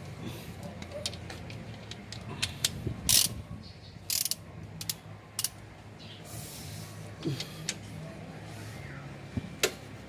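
Socket wrench being worked on the lower engine mount bolts from under the car: scattered sharp metal clicks and a few short scrapes, with a steady low hum underneath.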